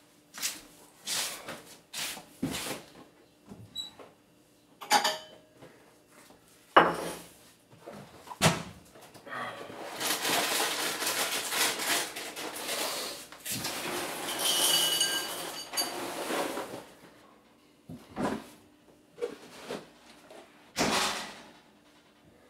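Kitchen handling sounds: cupboard doors and drawers opening and closing and dishes being set down, heard as a series of separate knocks and clacks. In the middle there are several seconds of steady rustling noise.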